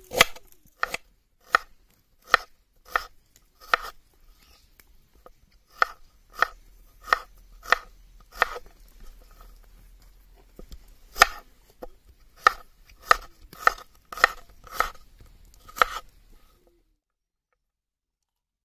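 Kitchen knife chopping ginger and small red onions on a cutting board: single sharp chops about one and a half a second, in three runs with short pauses between them. The sound cuts off suddenly about 17 seconds in.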